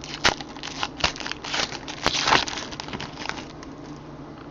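Crinkling and crackling of trading card pack wrappers and cards being handled, in quick irregular rustles with two louder crackles.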